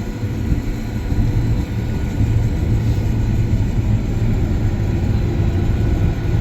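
John Deere S-Series combine running steadily while harvesting wheat, heard from inside the cab as a steady low rumble.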